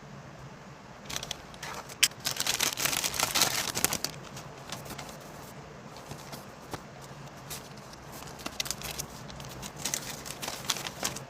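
Packaging being handled and opened: crinkling, rustling and crackling in two bouts, the first louder and longer, over a faint steady low hum.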